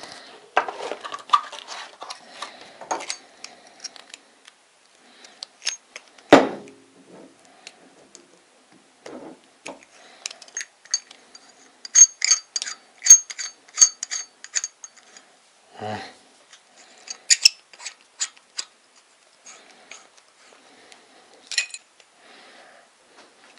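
Chrome kitchen mixer tap with a flexible hose being unboxed and handled: scattered clicks and knocks, with two louder knocks, then a run of quick metallic clinks about halfway through as its chrome parts are fitted together.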